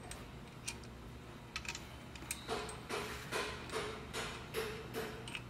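Small metal clicks, then a regular run of short metallic strokes, about two or three a second, as a motor locking bolt is fitted and turned in on a Bridgeport J-head milling machine head.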